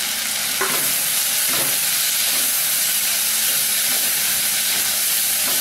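Tomatoes, garlic, shallots and manathakkali berries sizzling in hot oil in a clay pot, a steady hiss, while a metal spoon stirs them with a few light scrapes.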